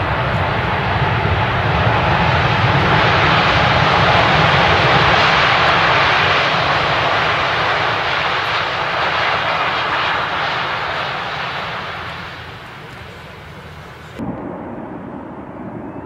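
Airbus A380 jet engines on the landing roll, a loud rushing jet noise that swells as the aircraft passes and then fades. About 14 seconds in it cuts suddenly to a duller recording of another A380 landing.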